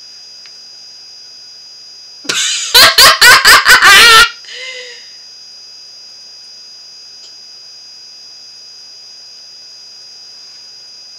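A woman's loud burst of laughter, about six quick pulses over two seconds starting about two seconds in, trailing off into a softer chuckle.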